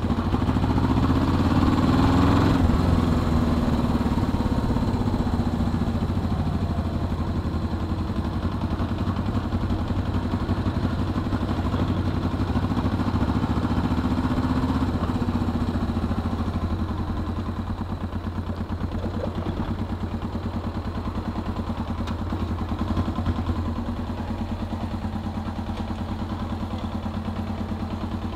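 Suzuki GS 500E's air-cooled parallel-twin engine running on the move, rising in revs about two seconds in and again about halfway through. For the last ten seconds it is quieter and steadier, idling as the bike comes to a stop.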